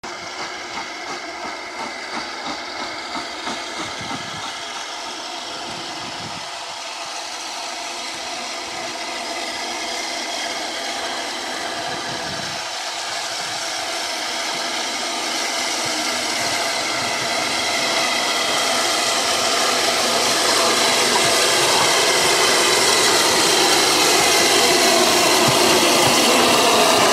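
Steam locomotive No. 847, a Southern Railway S15 4-6-0, drawing its train of coaches in towards the platform, steadily growing louder as it nears. A steady high squeal of several tones runs through it.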